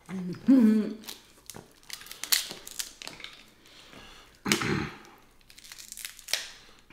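Snow crab leg shells being cracked and pulled apart by hand: a series of sharp cracks and crinkly crunches. Short voice sounds come about half a second in and again a little past halfway.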